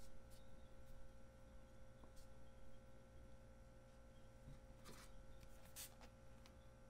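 Near silence: faint rubbing and a few light taps as hands roll a rope of egg boro dough on a plastic cutting board, over a low steady room hum.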